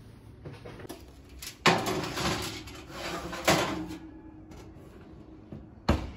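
Metal oven rack and foil-lined baking tray sliding and scraping as they are pushed into the oven, with a couple of sharp clanks. Near the end the oven door shuts with a short thump.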